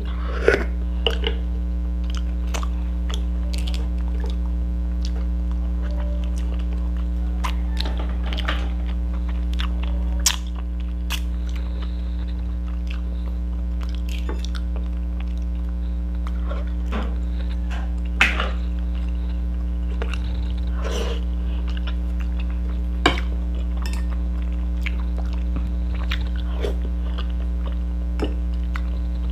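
Someone chewing and eating, small soft clicks and crunches scattered irregularly, over a steady electrical hum that is the loudest thing throughout.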